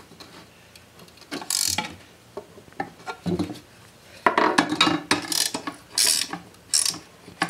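Ratcheting wrench clicking in short bursts as it tightens the nut bolting a blade adapter to a riding-mower blade, with the busiest clicking in the second half.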